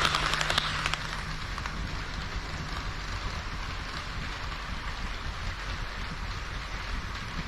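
HO-scale models of KiHa 40 and KiHa 58 diesel railcars running on the layout track: wheels rolling and clicking over the rail joints, with a low motor hum. It is loudest in the first second, then drops to a steady, quieter rolling hiss.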